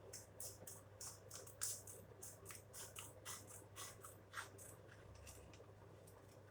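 Quiet, irregular small ticks and rustles of a fidget pen and its packaging being handled, a few a second, thinning out about five seconds in.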